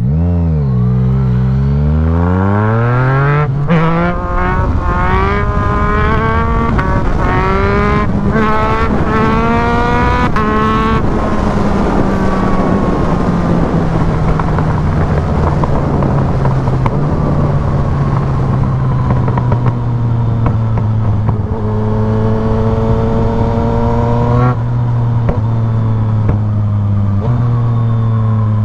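Yamaha MT-09's three-cylinder engine, with a full aftermarket exhaust, accelerating hard from a launch. Its revs climb and cut back through a quick series of upshifts about a second apart, then it runs steadily and eases off, with a few more rising revs and shifts near the end.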